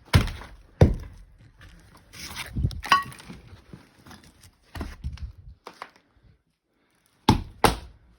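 Footsteps and knocks on old wooden floorboards: a string of separate sharp thuds, with a brief creak about three seconds in.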